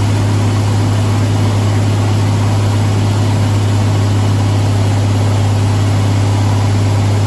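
John Deere 4455's freshly rebuilt turbocharged six-cylinder diesel running under heavy dynamometer load near its maximum power of about 140 hp. It makes a loud, steady drone that holds without change.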